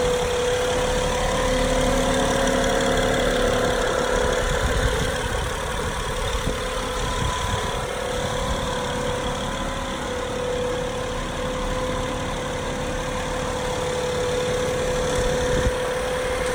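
2012 Acura MDX's 3.7-litre V6 idling in the engine bay with a steady whine over the engine sound. The whine is a new, undiagnosed fault noise that the owner says rises and falls with engine speed. The power steering fluid and the belts have not cured it.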